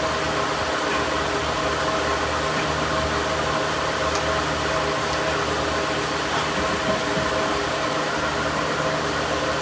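A steady motor running, a constant airy whir with a hum that holds one pitch throughout.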